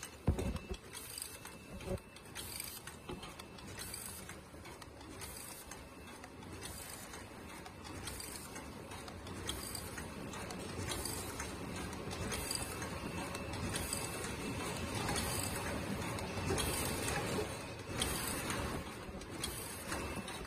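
Double-wall paper cup forming machine running: a steady, dense mechanical clatter of many rapid clicks and knocks, with a few sharper knocks near the start and the clatter growing somewhat louder toward the middle.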